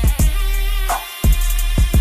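Background music with a heavy bass-drum beat over a deep bass and a melody.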